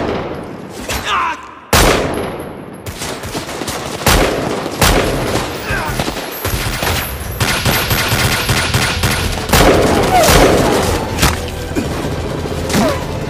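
Handgun fire in a shootout: a string of sharp pistol shots about a second apart.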